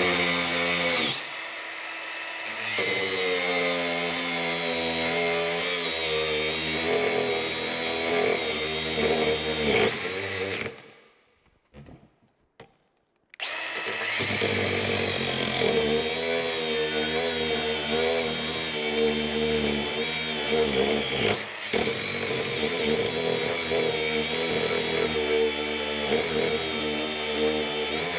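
Milwaukee angle grinder with an abrasive cut-off disc grinding through quarter-inch steel plate. Its motor note wavers up and down under load over a gritty hiss. It stops for about three seconds about halfway through, then resumes. The thin disc is wearing down fast on the steel.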